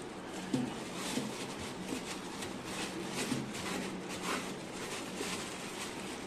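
Crinkly rustling of a plastic bag worn over a hand and scraping of wet bedding scooped out of a glass hamster tank, in short irregular strokes over a steady low hum.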